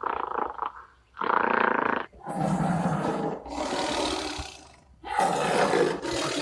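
An animal calling: a series of about five loud, harsh, rasping calls, each about a second long, with short gaps between them.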